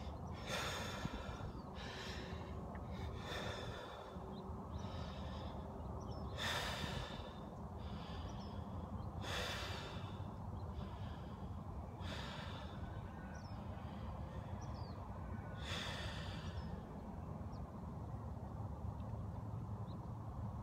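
A man taking a series of deep, noisy breaths in and out, about seven in all, coming further apart toward the end, to fill his lungs before a bong hit.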